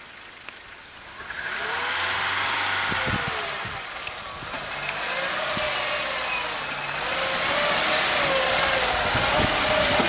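VIS-23461 Niva-based car's engine coming in about a second in and revving up and down repeatedly as it works through mud toward a washed-out stream, getting louder as it nears.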